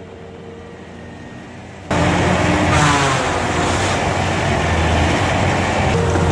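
Heavy machine's engine running, faint at first, then loud machinery noise that starts abruptly about two seconds in, with a short rising whine soon after.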